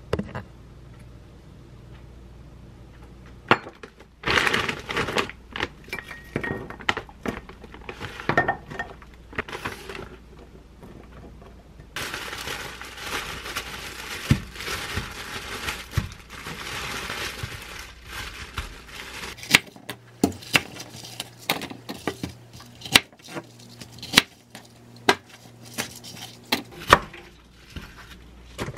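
Plastic wrapping crinkling and rustling as bunches of bok choy are unwrapped. From about two-thirds of the way in, a kitchen knife cuts on a wooden cutting board in a quick, irregular run of sharp knocks, the loudest sounds here.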